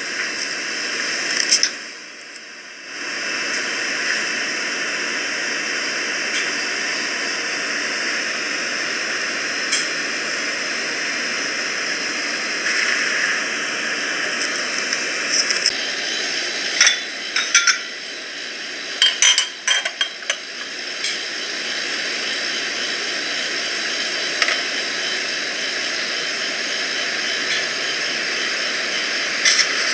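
A steady hiss that dips briefly about two seconds in, with clusters of light glass clinks and clicks about halfway through and again near the end as a glass coffee server is handled.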